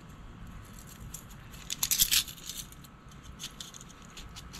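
Small metal clicks and scrapes as a welding tip cleaner's fine wire is picked from its set and worked through a clogged carburetor jet to clear it, with a brief cluster of sharper clicks about two seconds in.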